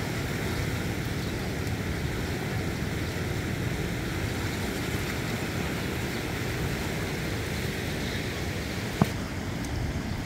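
Steady rumbling wind noise on the microphone, with a single sharp click about nine seconds in.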